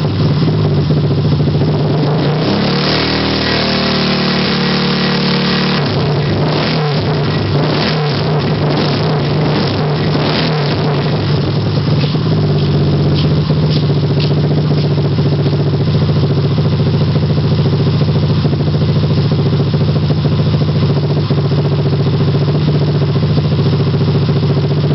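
1978 Honda CB125 motorcycle engine running on its original engine block. It is revved up about three seconds in, held for a few seconds and let drop back, then settles into a steady run.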